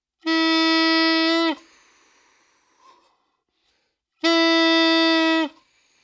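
Saxophone mouthpiece and neck blown on their own, two steady held notes of just over a second each, the second about four seconds in. Each note sags slightly in pitch and stops as the mouthpiece is pulled away from the lips, leaving only a faint rush of air with no lip buzz. That is the sign of an embouchure that is not pressing on the reed.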